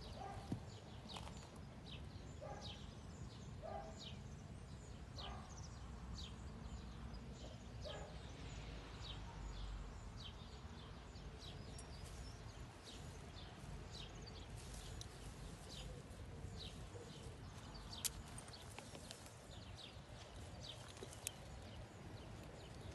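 Faint rustling and footfalls in grass and brush as a leashed dog sniffs about, with short, sharp high chirps scattered throughout over a steady low rumble.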